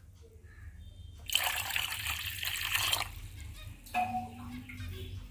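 Water being poured into a cooking pot: a splashing pour starts about a second in and lasts under two seconds, followed by a short knock.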